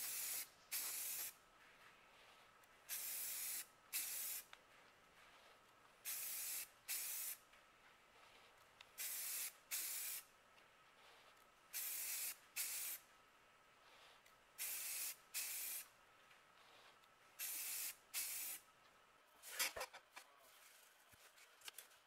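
An aerosol can of semi-gloss spray paint being sprayed in short hissing bursts, two quick bursts at a time about every three seconds. A few clicks near the end.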